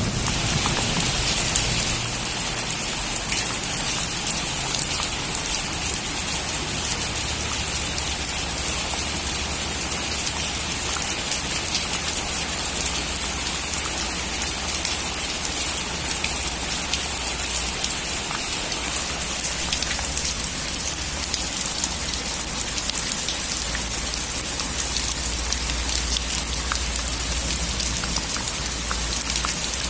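Heavy rain falling steadily on a metal roof: a dense, even hiss, with a few sharper drop ticks near the end.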